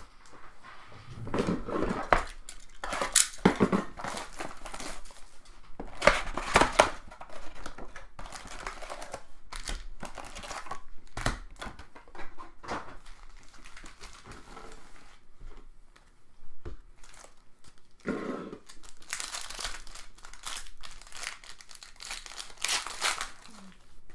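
Crinkling and tearing of trading-card packaging, pack wrappers and boxes, as it is handled and cleared away, in irregular bursts with short pauses.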